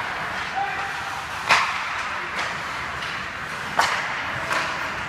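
Ice hockey sticks hitting the puck: two sharp cracks about two seconds apart and a softer one shortly after, over steady skating and rink noise.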